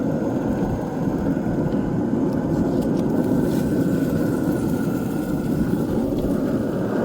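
Steady low rushing noise with no distinct events, a few faint light clicks partway through.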